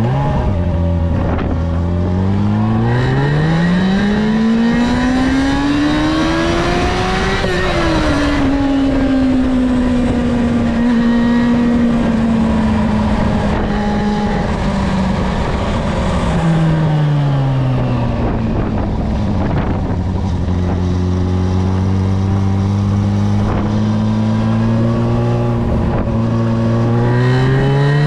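Yamaha Fazer 6's 600 cc inline-four engine on its stock exhaust, ridden on the road. It revs up steadily for the first several seconds, drops back and holds a steady cruising speed, then falls to low revs about two-thirds of the way in. It climbs again near the end.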